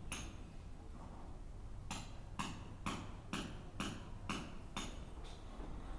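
A run of seven light, sharp taps at an even pace of about two a second, beginning about two seconds in.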